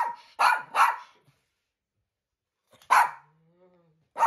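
Toy poodle barking: three quick barks in the first second, a pause, then another bark about three seconds in and one more at the end.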